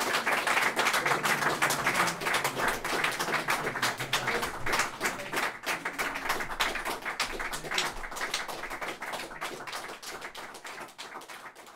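Audience applause, dense clapping at first that thins into fewer, scattered claps and fades away.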